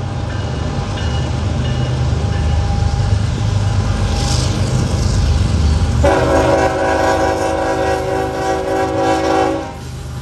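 Norfolk Southern GE ES44AC diesel locomotive rumbling as it pulls a loaded ballast train out of a tunnel. About six seconds in, its horn sounds one steady chord for roughly three and a half seconds, then cuts off.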